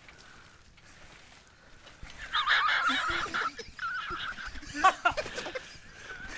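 A child shrieking and squealing while being bounced high on a trampoline. There is a loud burst of shrill squeals about two seconds in that lasts about a second, then a short rising-and-falling cry near the end.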